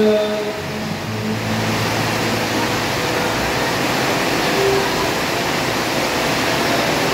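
Heavy rain pouring steadily onto an outdoor swimming pool's water surface, a continuous even noise of falling water.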